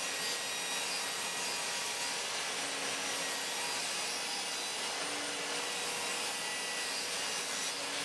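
Bosch GTS 10 XC table saw running steadily while ripping a wooden panel, an even, unchanging saw noise with a faint steady whine.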